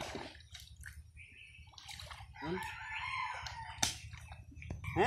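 A rooster crows once, about two seconds in, over small splashes and drips of water as the cast net is worked in the shallows.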